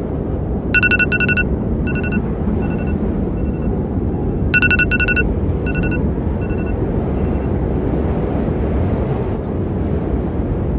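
A steady, loud rushing rumble with two bursts of quick electronic beeps, the second about four seconds after the first, each burst fading away in echoing repeats.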